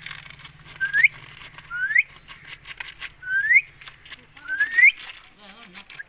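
Indian ringneck parakeet whistling: four short whistles, each sliding upward in pitch, about a second or so apart.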